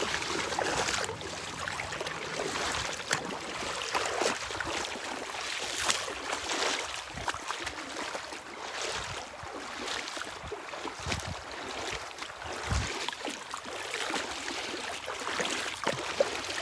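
Shallow, rocky river water rushing over a riffle, with irregular splashes from feet wading through it.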